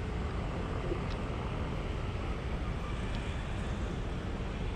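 Steady street traffic noise, a continuous rumble of passing vehicles with no single one standing out.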